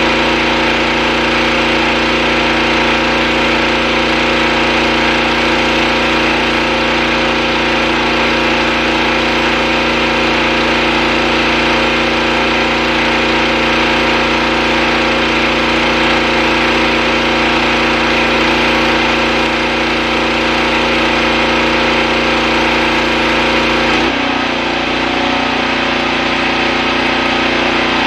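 Pressure washer engine running steadily. About three-quarters of the way through, its note drops and changes.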